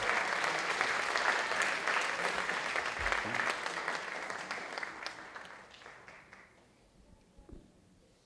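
Audience applauding, dying away about three-quarters of the way through.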